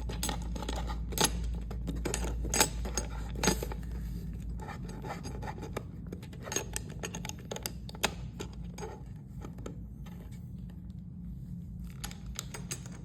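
Small metal parts of a wall clock's hand mechanism clicking and clinking as they are handled and fitted, with a few sharper clicks among them.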